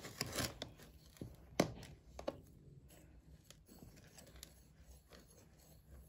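Small metal spoon scooping and scraping through granular laundry powder with scent beads in a plastic tub: faint gritty scrapes and a few sharp clicks, more of them in the first half.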